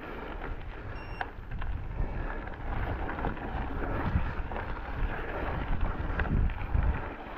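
Wind buffeting the microphone over the low rumble and irregular knocks and rattles of a mountain bike riding a rough trail. A brief high-pitched tone sounds about a second in.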